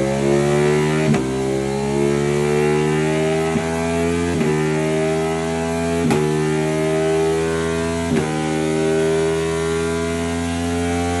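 Ducati Panigale V4's V4 engine through Termignoni slip-on exhausts, accelerating hard on a dyno. Its pitch climbs steadily and drops sharply at about five upshifts.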